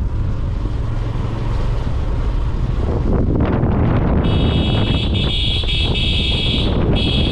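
Motorcycle running down a road, engine and wind noise rumbling steadily. A little past halfway a high steady tone comes in for about two seconds, with a few short breaks, then sounds again briefly near the end.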